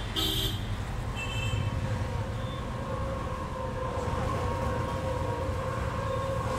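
Steady low rumble of street traffic. About a second in, a steady humming tone comes in and holds.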